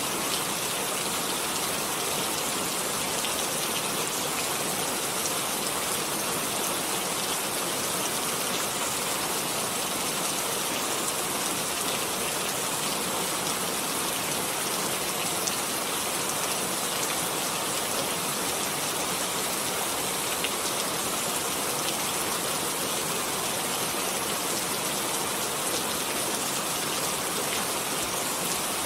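Steady rain falling, an even hiss of many drops with faint scattered taps of individual drops.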